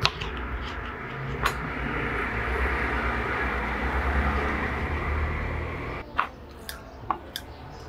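A machine running with a steady low rumble and hiss, cutting off suddenly about six seconds in, followed by a few light knocks of metal kitchen tools on a cutting board.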